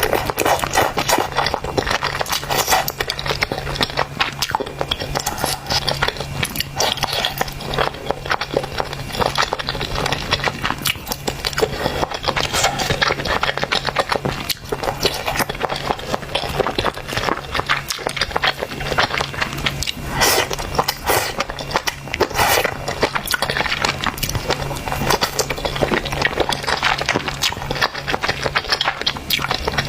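Close-up eating of spicy noodles: a dense, continuous run of chewing and slurping mouth clicks, with a steady low hum underneath.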